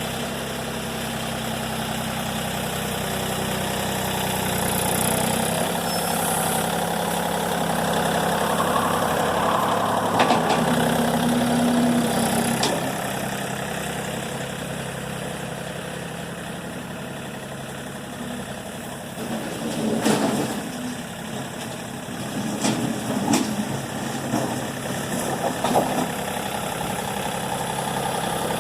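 Engine idling steadily, with a few sharp clanks and rattles from about twenty seconds in.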